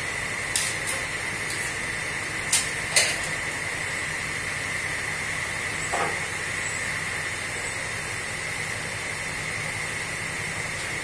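Sliding table saw running steadily with a constant whine and hum, the blade spinning without cutting, while pieces of wood are handled on the table with a few sharp knocks, the loudest two about two and a half and three seconds in.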